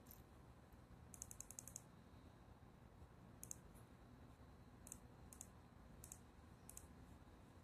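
Faint computer mouse clicks: a quick run of about seven clicks about a second in, then single clicks every second or so.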